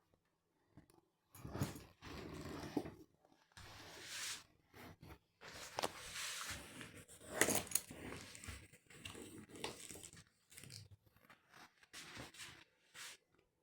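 Irregular handling noises: short rustles and scrapes broken by a few sharp clicks and knocks.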